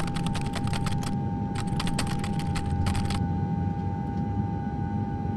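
A quick, irregular run of sharp clicks for about three seconds, over a steady high tone and a low hum that continue after the clicking stops.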